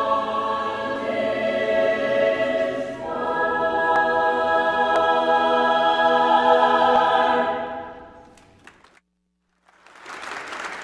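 Mixed choir singing the closing chords of the anthem, changing chord about three seconds in, then holding the last chord and letting it die away. After a moment's silence, applause begins near the end.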